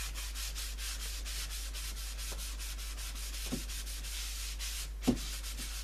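Pad of folded kitchen paper soaked in wood dye rubbed back and forth over wood veneer: a steady swishing rub in quick repeated strokes.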